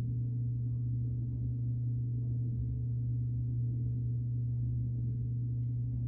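Steady low drone from an ambient background music bed: one sustained, gong-like tone with faint overtones and no beat.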